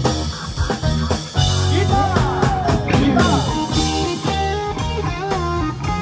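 Rock music led by an electric guitar, with a cluster of bent, sliding notes about halfway through over a steady bass line.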